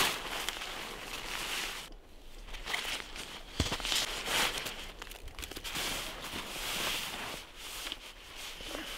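Irregular crunching and rustling noises, with a sharp snap about three and a half seconds in.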